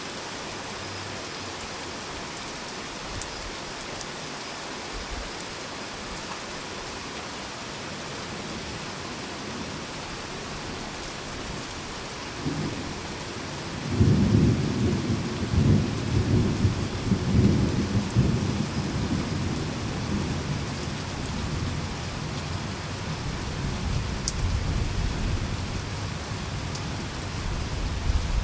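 Steady rain falling, with a roll of thunder that starts a little before halfway, rumbles loudest for a few seconds, and trails off into a lower rumble under the rain.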